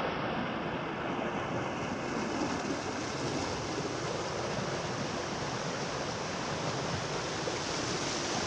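A small rocky stream flowing over stones, making a steady, even water noise.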